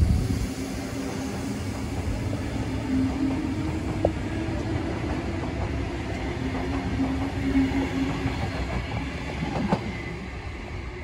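Electric double-deck suburban train running along the track away from the footbridge: a steady rumble of wheels on rail with a humming tone through the middle, and a couple of sharp clicks about four seconds in and again near the end. The sound fades slightly as the train draws off.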